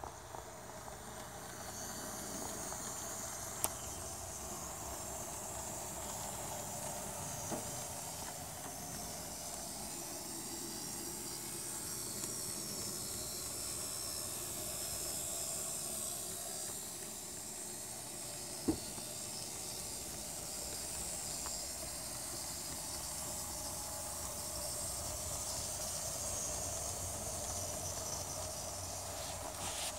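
N scale model diesel locomotive and freight cars running on the track: a steady hiss of the small motor and wheels, with a few sharp single clicks.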